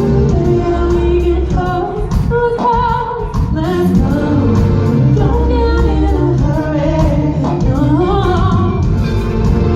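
A woman sings an R&B song live with a band. Her voice bends and slides between notes over sustained bass notes and a drum beat.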